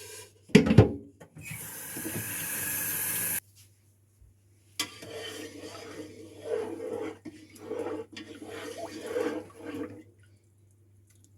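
A loud knock, then a kitchen tap running into a pasta pot for about two seconds before it is shut off sharply. A few seconds of irregular knocking and clatter follow as the pot is handled.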